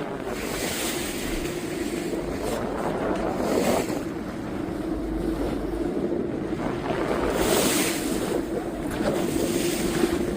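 Boat engine running steadily under way, with water rushing against the hull and wind gusting on the microphone.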